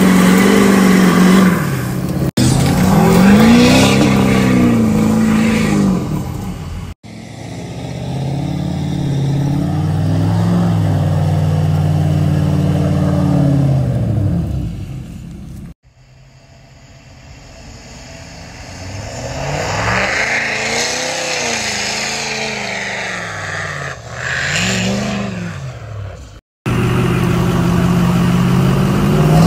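Full-size pickup truck engines revved hard again and again while their tyres spin in mud, the pitch rising and falling with each rev; the first is a diesel Ford Super Duty. The sound cuts off abruptly several times as one clip gives way to the next.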